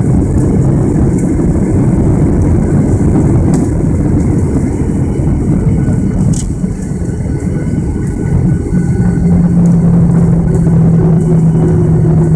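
Boeing 737-800 landing rollout heard from the cabin: a loud, steady rumble from the CFM56 engines in reverse thrust and the wheels on the runway. A steady low hum comes in about nine seconds in.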